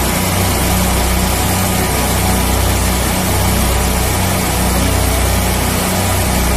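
Van-mounted twin-engine 350-bar high-pressure sewer jetter running steadily: a constant, loud low engine hum under a wide hiss.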